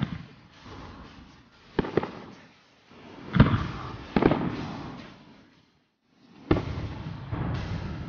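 Aerial firework shells bursting in the sky: about five sharp booms a second or two apart, each trailing off in a rolling echo.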